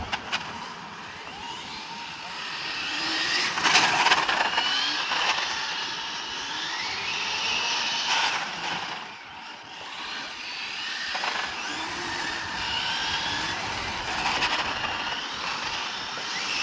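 Brushless electric RC car driving on asphalt: a high motor whine rising and falling with the throttle, with spells of tyre noise on the tarmac, loudest about four seconds in.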